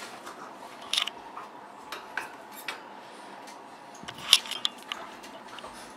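Scattered light clicks and metallic rattles of a wire rat cage as pet rats move about on it, over a faint steady hiss. The loudest clicks come about a second in and again a little past the middle.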